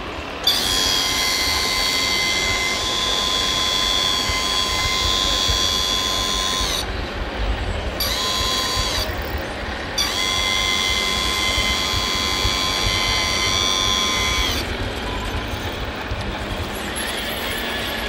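Electric hydraulic pump of a scale RC Mercedes-Benz Actros 8x8 tipper truck whining at a steady pitch while the raised tipper body is lowered. It runs in three spells, about six seconds, then about one second, then about four seconds. After it stops, a lower, steady running sound of the truck's drive remains.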